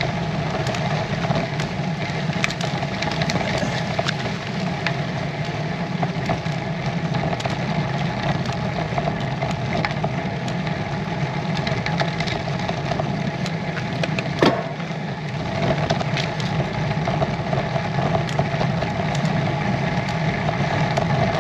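Steady rolling noise of a road bike climbing slowly on a rough country lane: tyre roar and wind on a bike-mounted camera, with scattered small ticks from the tyres on grit. A short falling squeak comes about two-thirds of the way through.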